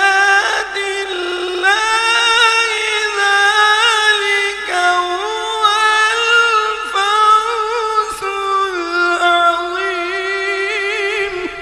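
Quran recitation (tilawat) by a male qari, chanted melodically in a high register with long held, wavering ornamented notes and a few short breaths between phrases. The phrase ends just before the end.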